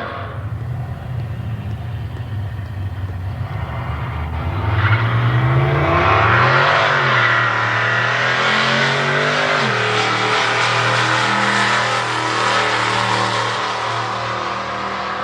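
Drag cars at the starting line, engines running, then revving up about five seconds in and launching hard. They accelerate loudly down the strip with audible gear changes, and the sound eases off near the end.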